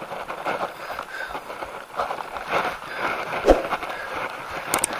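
Bicycle rolling down a paved road: wind rushing over the handlebar camera's microphone, with the bike rattling and clicking over the surface. There is a thump about three and a half seconds in and a couple of sharp clicks near the end.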